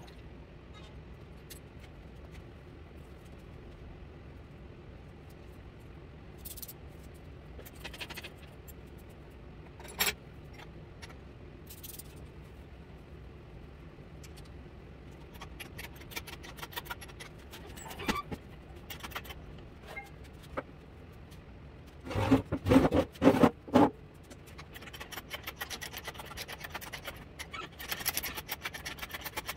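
Metal parts and tools being handled in a workshop: scattered clicks and scrapes over a steady low hum, a quick run of louder knocks about two-thirds of the way in, then more scraping and clinking near the end.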